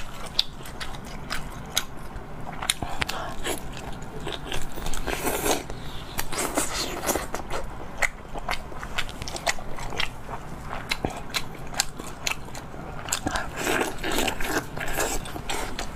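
Close-miked eating: biting and chewing with many irregular crunches and wet clicks.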